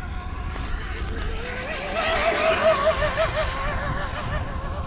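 1/7-scale Arrma Limitless V2 electric RC car with a Castle 2028 1700kv brushless motor, running flat out on a speed run. Its high whine wavers in pitch and is loudest a couple of seconds in, over a low rumble.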